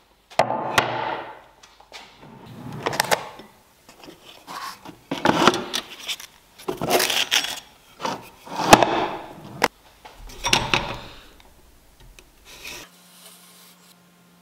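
Wood-on-wood handling noises: a plywood board rubbed and slid over a wooden workbench, and a workshop drawer pulled open on its runners. It comes as several scrapes about a second long, each with sharp knocks. Near the end it drops to faint, light scratching of a pencil along a steel ruler.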